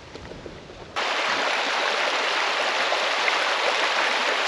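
Shallow river water rushing over a gravel and cobble bed, a steady, even rush that starts abruptly about a second in; before that only a faint background.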